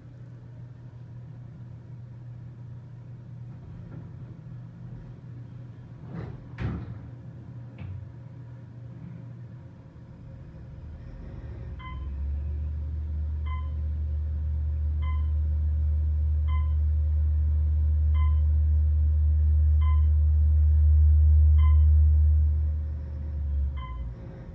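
Otis Series 1 traction elevator: the car doors slide shut with a knock about six seconds in. About twelve seconds in the hoist motor starts with a low hum that grows louder as the car descends. A short electronic chime sounds at each floor passed, eight in all about a second and a half apart, and the motor cuts out shortly before the end as the car stops.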